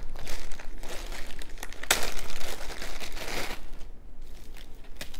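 Clear plastic zip-top bags crinkling and rustling as bagged bead necklaces are handled, in irregular bursts with a sharp crackle about two seconds in.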